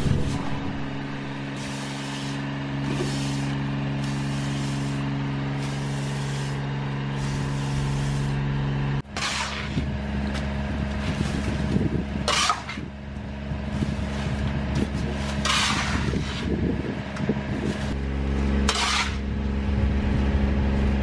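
Push broom sweeping wet block paving in short strokes about once a second, then, after about nine seconds, a metal shovel scraping up wet leaf sludge off the paving four times. A steady engine drone runs underneath.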